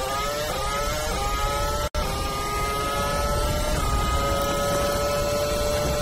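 Formula One car engine heard onboard at high revs, its pitch climbing in small steps through gear changes. A brief dropout comes about two seconds in, and after it the engine holds a near-steady high note.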